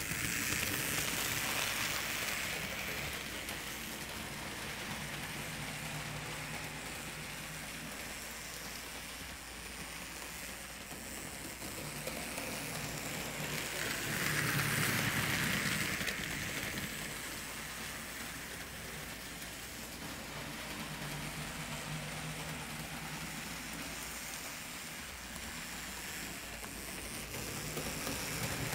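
HO-scale model diesel locomotive and hopper cars running on the track: a steady noise of the motor and wheels on the rails that swells as the train passes close, at the start, about halfway through and again near the end.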